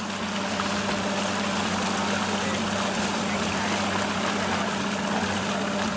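Outboard motor of a towing center-console boat running at a steady cruising pitch, over a constant rushing hiss of water and wind.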